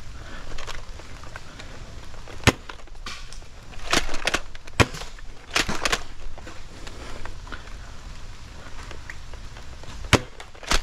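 Scattered sharp clacks and knocks of a foam-dart skirmish, about ten in all: a lone one early, a quick cluster in the middle, and one more near the end.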